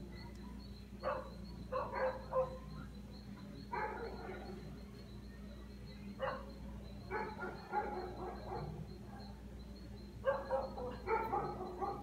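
A dog barking in short bursts, several bouts spread through, over a faint steady hum.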